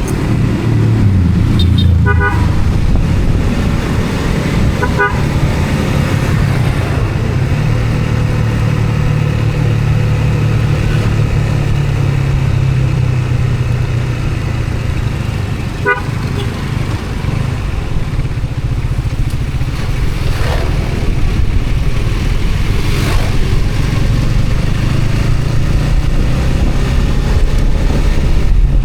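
Steady low rumble of a vehicle travelling on the road, with three short horn toots, about two, five and sixteen seconds in.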